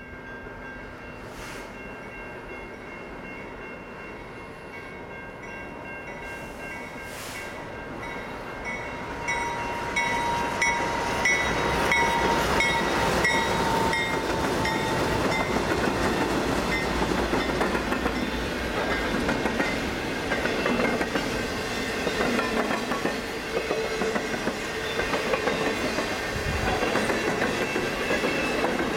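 Freight train led by GE C44-9W diesel-electric locomotives, coming closer and growing louder over the first ten seconds or so as the locomotives pass. It then holds loud as the double-stack and trailer-on-flatcar intermodal cars roll by, their wheels clicking over the rail joints.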